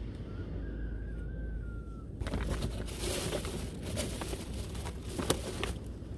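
A single long wavering whistled call, like a bird's, over a steady low rumble; about two seconds in it gives way to a few seconds of rustling and clattering, with one sharp knock near the end.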